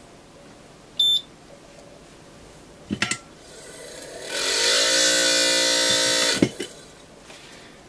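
Quick 861DW hot air rework station powering on with a short beep, then its blower fan starting: rushing air with a whine that rises in pitch, holds steady for about two seconds and cuts off with a click. The whine is the funny noise the owner takes for a fan motor problem.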